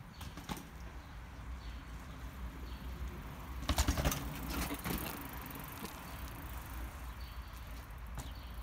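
Mountain bike coming down a drop off concrete steps, with a cluster of knocks and rattles from tyres and frame about four seconds in. Birds chirp faintly throughout.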